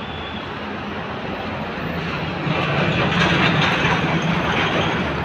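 Street traffic: a passing vehicle's engine hum and tyre noise swell louder about two and a half seconds in, then ease off near the end.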